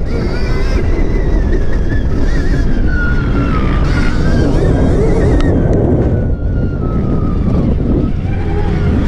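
Stark Varg electric motocross bike riding on a dirt track: the electric motor's whine slides down in pitch over several seconds and fades about seven and a half seconds in, over a loud steady rumble of wind buffeting the camera mic and the ride.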